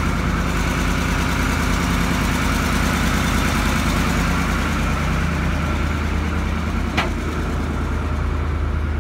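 Ford C-series E-One fire truck's diesel engine running steadily, with a single sharp click about seven seconds in.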